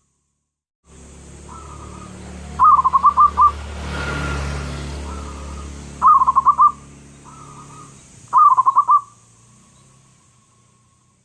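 Zebra dove (perkutut) cooing: three loud, quick stuttering phrases of about five or six notes each, with softer cooing between them. A low hum lies under the song.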